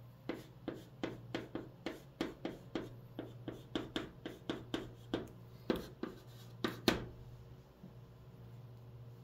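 White chalk writing on a green chalkboard: a quick run of short taps and scrapes, one for each stroke of the letters, about two or three a second, that stops about seven seconds in.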